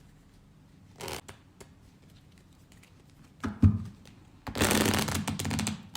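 A deck of playing cards being handled and shuffled: a short flick of cards about a second in, a couple of sharp card snaps a little past halfway, then about a second and a half of dense shuffling near the end.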